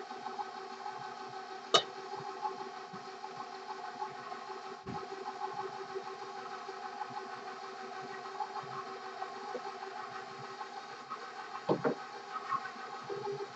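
KitchenAid stand mixer running steadily on its lowest "stir" speed, a constant motor hum. There is one sharp click about two seconds in and a few light knocks near the end.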